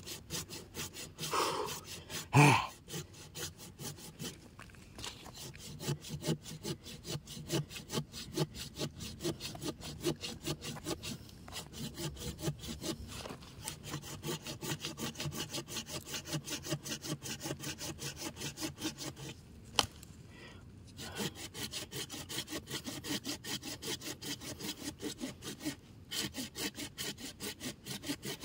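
Hand saw cutting through the woody root stem of an ileng-ileng shrub in quick, even back-and-forth strokes, with a short pause about two-thirds of the way through.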